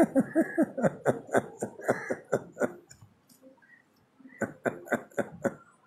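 A man laughing hard in short, breathy bursts that die away about three seconds in, followed by a few quieter chuckles near the end.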